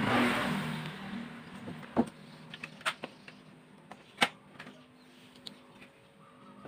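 Hiss and low hum fading over the first second, then a handful of sharp, separate clicks and knocks, as of small parts and tools being handled on a workbench.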